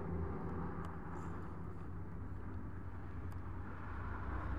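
Steady low hum of a distant engine running, with a few faint clicks.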